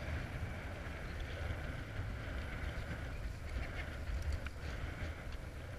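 Wind buffeting a body-worn camera's microphone on an exposed rooftop: an uneven low rumble.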